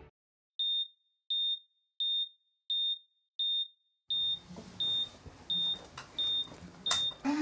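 Steady electronic beeps at one high pitch, about one every 0.7 seconds, the pulse beep of a hospital heart monitor. Faint room noise with a few small clicks and rustles comes in about halfway through.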